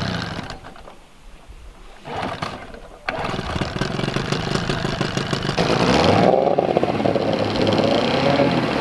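A motor vehicle engine running, getting suddenly louder about three seconds in, then louder again with its pitch rising and falling from about six seconds.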